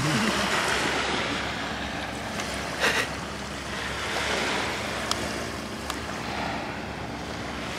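Steady rushing of surf and wind on a beach, with a few short clicks.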